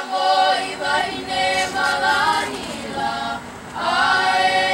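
A group of mostly girls' voices singing a Hawaiian song together, unaccompanied, in long held notes, with a short break about three and a half seconds in before the next held phrase.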